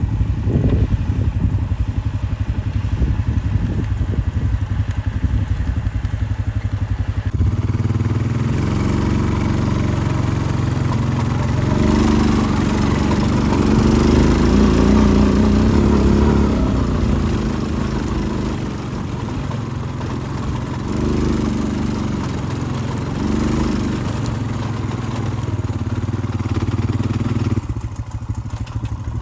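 A vehicle engine running: a steady pulsing run for the first several seconds, then louder and rougher with its pitch rising and falling as it works or drives, dipping briefly near the end.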